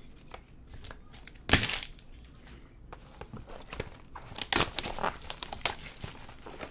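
Clear plastic wrapping crinkling and tearing as hands strip and handle a Tier One baseball card box, in irregular sharp crackles, with a loud one about a second and a half in and a quick run of them around four to five and a half seconds.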